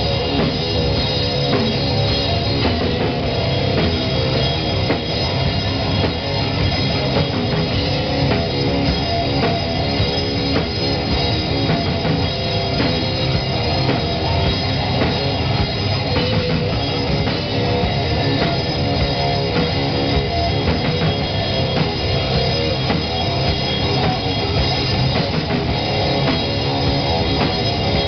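Live heavy metal band playing: electric guitars and bass over a drum kit, steady and loud throughout.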